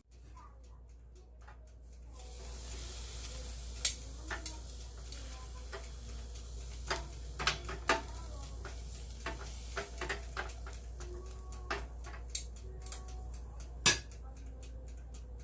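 Marinated pork neck sizzling on an electric grill, the sizzle building over the first couple of seconds and then holding steady, with sharp clicks and clatters of utensils against the cookware.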